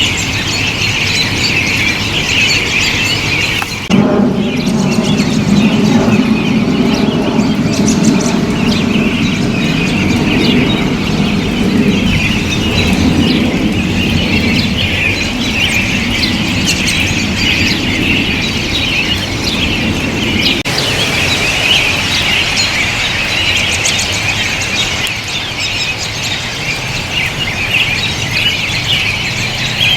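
A large flock of American robins calling, a dense chatter of many overlapping short chirps and squeals. A low rumble runs under the calls for several seconds in the first half.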